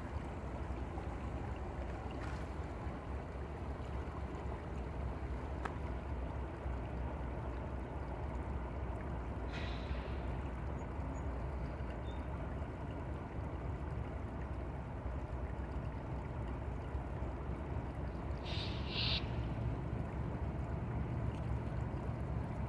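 Shallow river running over rocks, a steady wash with a low rumble underneath. Two brief high chirps stand out, about ten and nineteen seconds in.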